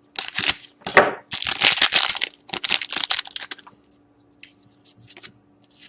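A hockey card pack's wrapper being torn open and crumpled: a run of loud crinkling and crackling that lasts about three and a half seconds, then a few faint clicks and rustles as the cards are handled.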